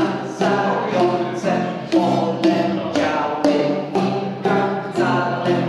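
Acoustic guitar strummed in a steady rhythm, about two strums a second.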